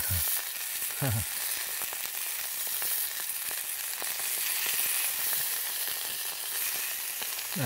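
Steaks frying in a pan on campfire coals: a steady sizzle.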